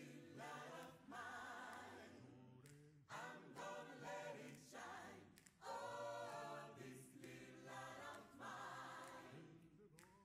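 Quiet choir singing a cappella, in several sustained phrases with audible vibrato.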